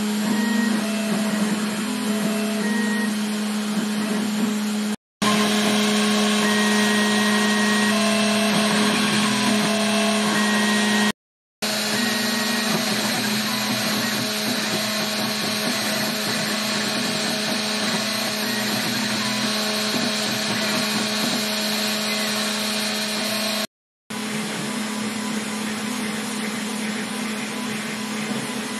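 Spindle motor of a small CNC milling machine running steadily while it engraves the tracks of a copper-clad circuit board, a constant motor hum with a steady tone. The sound cuts out briefly three times.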